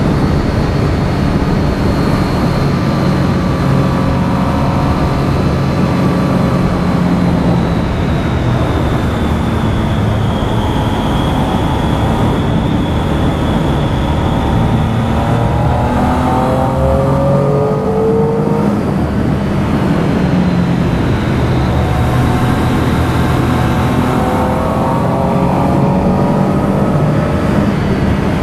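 Triumph Street Triple R's inline three-cylinder engine running on the move, under a constant rush of wind and road noise. The revs rise in several climbing sweeps about two-thirds of the way through and again near the end, with a thin steady high whine on top.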